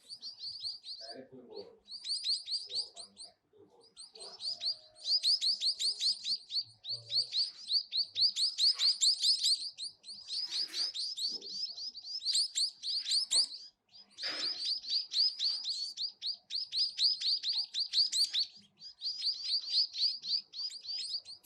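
Small birds chirping: fast runs of short, high chirps, about ten a second, in bouts of a few seconds with brief pauses between them.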